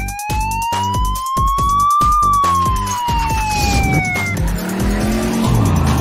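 Police siren sound effect: one slow wail rising for about two seconds and then falling away, over background music with a steady beat.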